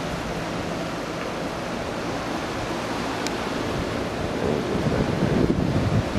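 Hurricane-force wind blowing steadily through trees and shrubs, with heavy gusts buffeting the microphone from about four and a half seconds in.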